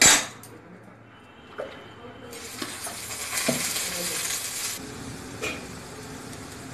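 Metal cookware clanks loudly on the iron kadai, then a hissing sizzle rises from the hot pan for about two and a half seconds, with a few light clinks of metal on metal.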